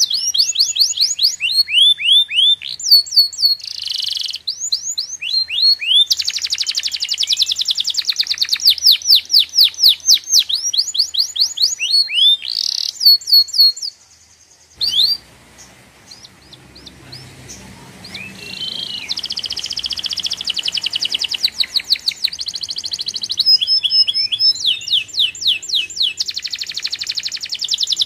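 Birds chirping and trilling in fast runs of high, downward-sweeping notes. The sound breaks off abruptly about halfway through and resumes over a faint low rumble.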